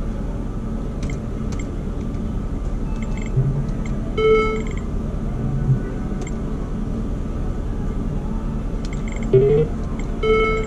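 Steady hum of a casino floor with short electronic tones and clicks from a video poker machine and nearby slot machines. A few pitched beeps come every few seconds, and a brief rising tone sounds near the end.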